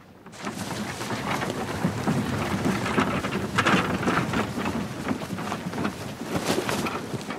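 A dense noise like heavy rain, with many irregular patters over a low rumble, fading in just after the start.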